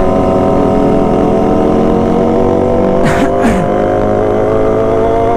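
Sport motorcycle engine heard from on board, running at high revs with its pitch rising slowly as the bike accelerates, over a low rumble of wind on the microphone. About three seconds in come two short rasping bursts.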